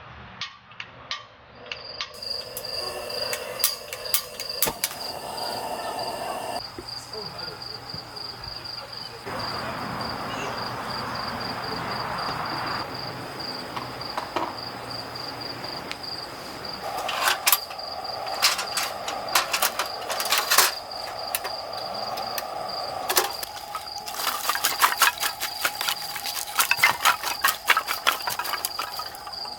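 Cricket chirping in a steady, rapid, even pulse, with scattered clicks and knocks over it that grow denser in the second half.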